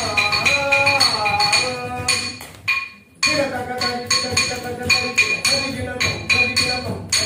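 Yakshagana hand cymbals (tala) struck in a quick steady beat of about three to four ringing clinks a second, keeping time for the dance, with a voice singing over them. Both die away about two and a half seconds in, then start again just after three seconds.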